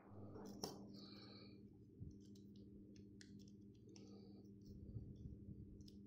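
Faint, scattered clicks and taps of the plastic parts of a Mini 4WD kit car being handled while a small screw is driven into the plastic chassis with a precision screwdriver, over a low steady hum.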